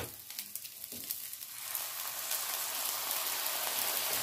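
Fried rice sizzling in a hot frying pan, with a few light crackles at first; about two seconds in the sizzle swells into a louder, steady hiss as soy sauce mixture hits the hot pan.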